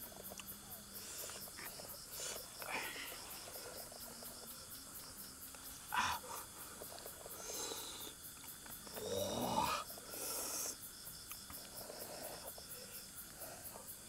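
Insects chirping in a steady, even pulse of about three a second. Over it are the handling sounds of tearing apart a roasted duck, with a sharp crack about six seconds in and a louder tearing, chewing stretch around nine to ten seconds in.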